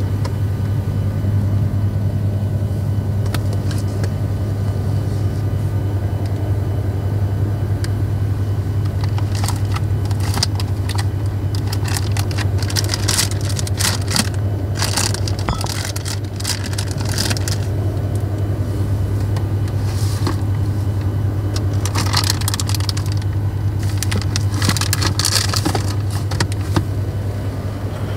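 Steady low hum of a Freightliner Cascadia semi truck's diesel engine running. From about nine seconds in, there are scattered rustles and clicks of plastic food packaging and bottles being handled.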